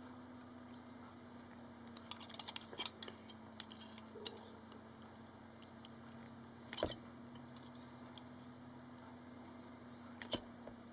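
Metal clicks and clinks of Knipex flat-jawed pliers gripping and squeezing a silver fish knife to flatten it: a quick run of clicks about two to three seconds in, a few single clicks after, a heavier knock near seven seconds and one more click near the end.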